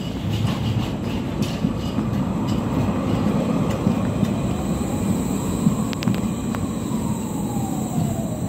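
Škoda-built low-floor articulated tram drawing up and running close past, with a steady low rumble of wheels on rails. Over it an electric motor whine rises and then falls in pitch, and a few sharp clicks come in the middle.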